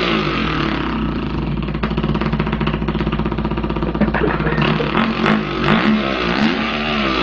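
A man imitating a dirt bike engine with his voice, a buzzing drone that rises and falls in pitch like a motorcycle revving and shifting, held steadier for a couple of seconds in the middle.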